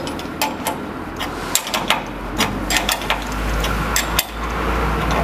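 Irregular sharp metal clicks and taps as a hand tool works the panel shoe of an elevator's sliding landing door in its aluminium sill guide. A low hum comes in about a second and a half in.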